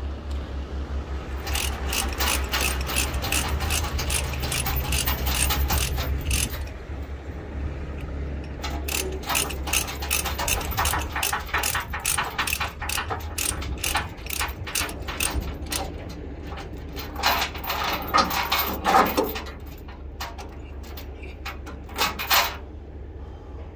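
Ratchet chain binder being cranked to tighten a tie-down chain on a load: fast, even ratcheting clicks in two long runs, with a few heavier clanks near the end, over a steady low hum.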